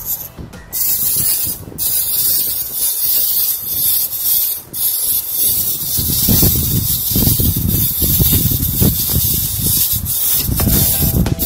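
Wind-up spring motor of a Zoids Wild Dilofos plastic model running: a steady whirring hiss from its gearbox, with uneven clatter of plastic legs on the table.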